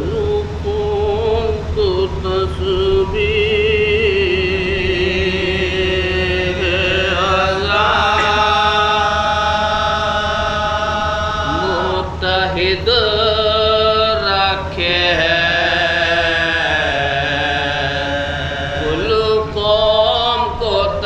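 Men's voices chanting a soz-o-salam, an Urdu Shia mourning lament, in chorus and unaccompanied. Long held notes slide and waver, with brief breaths between phrases.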